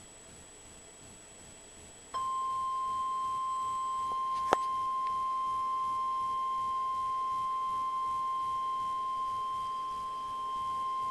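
NOAA Weather Radio's 1050 Hz warning alarm tone: one steady, high, pure tone that starts abruptly about two seconds in and holds. It signals that a warning broadcast is about to follow. A sharp click cuts across it about four and a half seconds in, and faint radio hiss comes before the tone.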